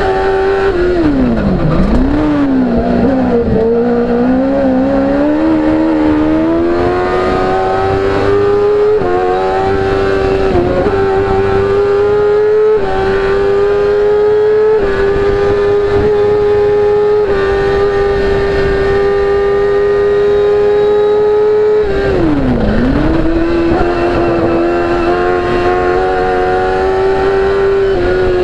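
BRC CM05 Evo sports-prototype race car engine at full throttle, heard from the cockpit. It holds high revs with small dips at each gear change. Twice, about two seconds in and again near the end, the revs drop sharply as it slows for a bend, then climb back up under hard acceleration.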